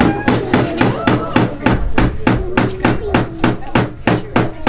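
A hammer striking in a fast, even rhythm, about four blows a second.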